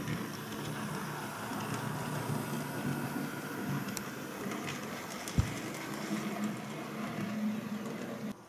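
Model railway locomotive running along the track: a steady electric-motor whir with the rumble of wheels on rail. A single dull thump about five seconds in.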